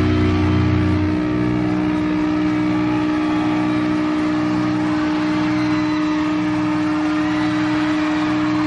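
Sustained distorted electric-guitar chord and amplifier feedback droning as a live rock song rings out, the low bass note cutting off about a second in.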